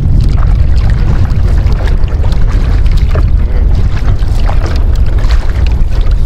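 Paddle strokes splashing and dipping in the water beside a small outrigger canoe, over a heavy, steady low rumble.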